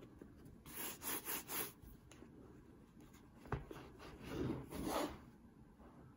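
Hands handling a hardcover book, rubbing and sliding over its textured cover as it is turned over: a run of short scraping rustles about a second in, a light knock about three and a half seconds in, then a longer rub.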